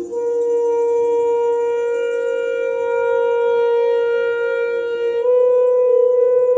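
Live music: a single instrument holds one long, steady note, then steps up slightly in pitch and grows a little louder about five seconds in.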